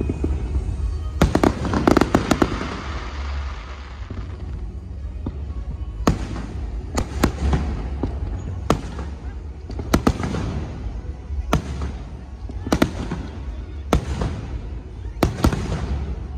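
Aerial firework shells bursting with sharp bangs: a quick cluster of bangs about a second in followed by crackling, then single and paired bangs every second or two.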